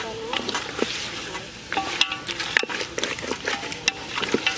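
A ladle stirring chicken pieces frying in a pot. The food sizzles with a steady hiss, broken by many short scrapes and knocks of the ladle against the pot.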